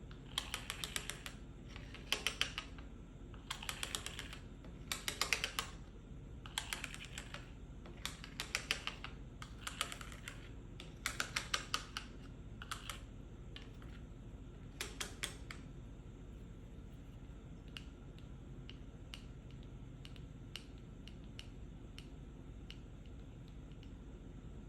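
Fingers tapping on a medicine pill box in quick flurries of light taps, a cluster every second or so; about two-thirds of the way through the flurries stop, leaving only a few faint scattered clicks.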